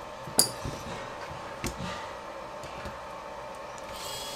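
A few light clicks and taps as a small FPV camera is handled, the sharpest about half a second in. Near the end an electric precision screwdriver starts up with a high whine, its bit in one of the camera's screws.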